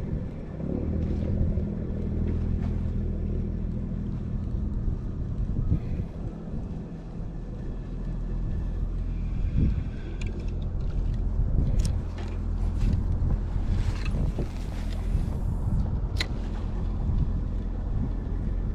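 Small boat motor running steadily with a low hum. There are a few sharp clicks and knocks in the second half.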